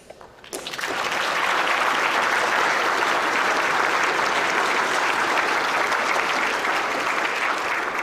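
Large audience applauding. The clapping swells in just under a second in, holds steady, and begins to thin near the end.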